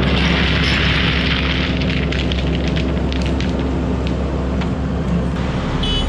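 Heavy equipment diesel engines running steadily while river rock pours and clatters with a rumbling rush, thickest in the first couple of seconds.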